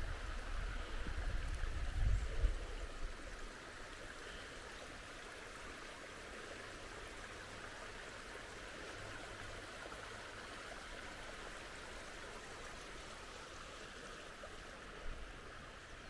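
Steady rushing of a flowing creek, with gusts of wind buffeting the microphone for the first couple of seconds.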